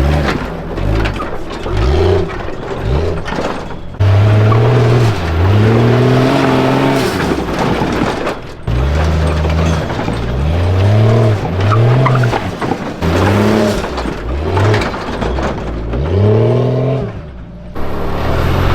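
Supercharged 1992 Jeep Cherokee engine revving in repeated bursts, its pitch rising and falling again and again, while rock crawling. The sound breaks off abruptly several times.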